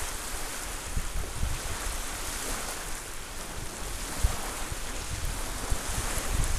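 Small waves lapping and washing over a sandy, pebbly shoreline in a steady wash, with wind buffeting the microphone in uneven low rumbles.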